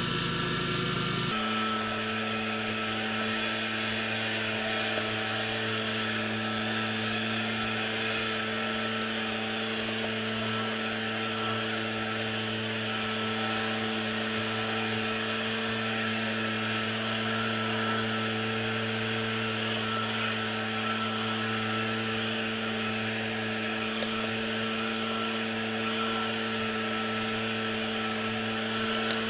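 Small petrol engine of lawn equipment running steadily at high speed; its note shifts about a second in, then holds.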